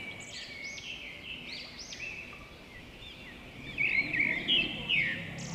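Small birds chirping in the background: many short, arched high notes overlapping one another, a little louder about four to five seconds in.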